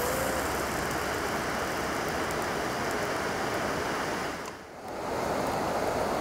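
Steady rushing of a river, dipping briefly about four and a half seconds in, with a short hummed 'mm' of delight at the start.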